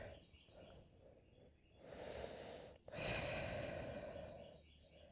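A person breathing audibly during a yoga stretch: a shorter breath about two seconds in, then a longer, louder breath out like a sigh right after it.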